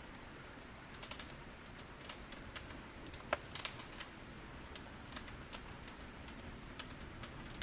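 Firewood burning: irregular crackles and snaps over a steady low hiss, with one sharper pop about three seconds in.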